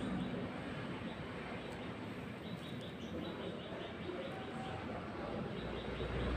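Steady background noise with short runs of quick, high chirps, and a low rumble coming up near the end.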